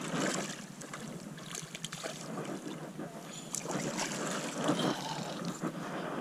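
Light wind on the microphone, with rustling and small irregular handling clicks.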